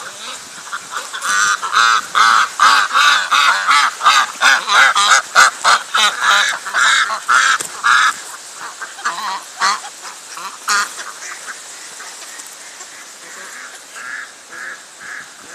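Ducks quacking: a fast run of loud quacks, about three or four a second, for the first half, then a few scattered quacks and some fainter ones near the end.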